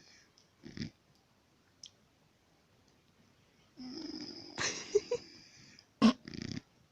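Sleeping pet monkey snoring in short, uneven breaths. A brief snore comes just under a second in, then after a quiet spell of about three seconds a longer snore with a couple of sharp clicks, then a loud sharp intake and another short snore near the end.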